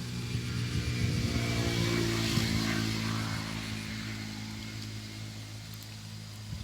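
A motor engine running with a steady low hum. It grows louder to a peak about two seconds in, then slowly fades.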